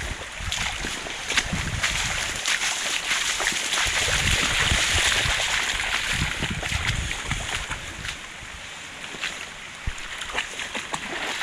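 Floodwater rushing through an overflowing garden stream, a steady hiss that swells about halfway through, with irregular low thuds underneath.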